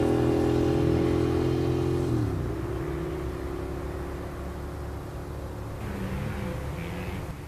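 Suzuki SV650 K5's 645 cc V-twin engine going by under power with a steady engine note; about two seconds in the pitch drops and the sound fades away down the road.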